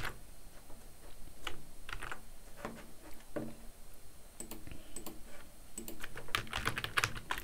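Computer keyboard keystrokes and clicks, scattered at first, then a quicker run of keystrokes over the last second or so.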